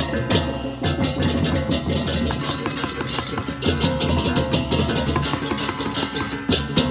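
Balinese baleganjur gamelan playing: crash cymbals clash in a fast, driving rhythm over drums and ringing tuned gongs.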